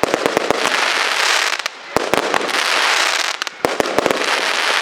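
Royal Fireworks 'New Moon' firework going off: dense crackling with many sharp bangs, coming in waves that begin right at the start, about two seconds in, and about three and a half seconds in.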